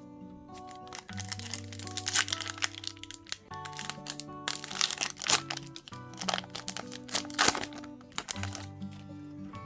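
Crinkling and crackling of a plastic trading-card pack wrapper being handled and torn open, in two busy spells, over background acoustic guitar music.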